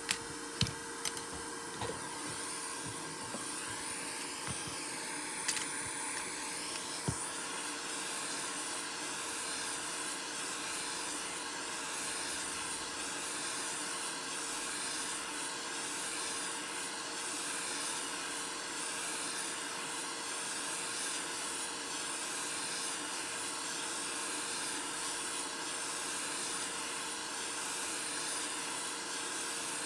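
Steady blowing hiss with a faint hum running underneath, and a few light clicks in the first seven seconds.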